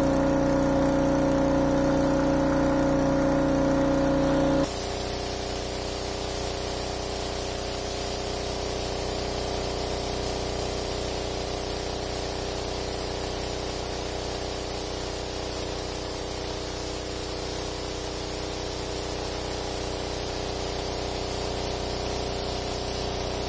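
Engine-driven pressure washer running steadily while its lance blasts water against the steel hull of a narrowboat, a steady engine hum under the hiss of the spray. The tone of the hum changes abruptly about five seconds in.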